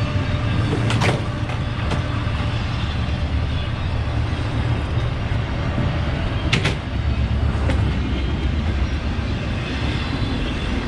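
Low, steady rumble of a passing train, with two sharp clanks, one about a second in and one near the middle.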